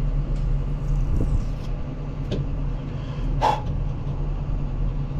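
Diesel engine of heavy construction equipment idling with a steady low rumble. A few short knocks sound over it, the loudest about three and a half seconds in.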